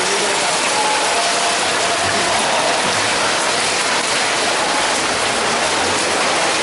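Rain falling steadily, a dense even hiss with no break.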